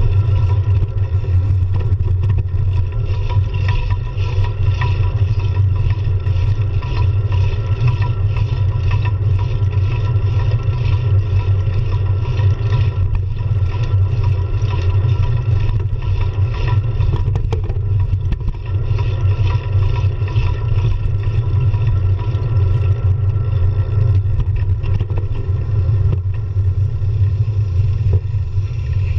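Steady low wind rumble on a handlebar-mounted GoPro's microphone while riding a road bike, with road noise and small rattles through the mount.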